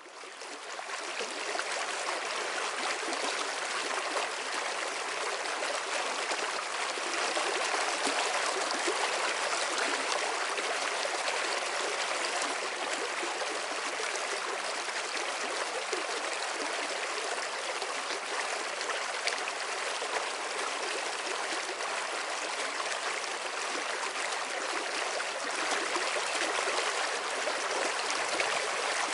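Stream water running over rocks in a steady, even rush, fading in over the first couple of seconds.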